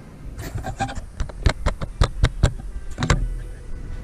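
A rapid series of sharp knocks, clicks and clatters, loudest about halfway through: the steel mower deck being moved and handled.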